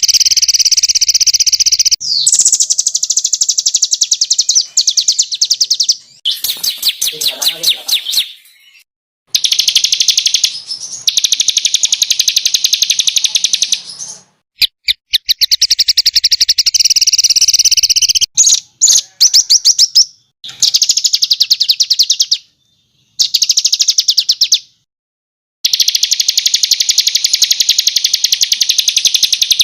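Songbird singing long bursts of rapid-fire, high trilled notes (the 'tembakan' phrases used in masteran training recordings). Each burst lasts a few seconds and they are separated by short, abrupt silent cuts.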